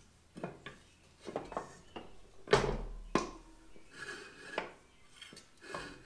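Metal clinks and knocks of a motorcycle rear wheel, brake drum and axle being worked into the swingarm by hand, with two sharper knocks about half a second apart near the middle.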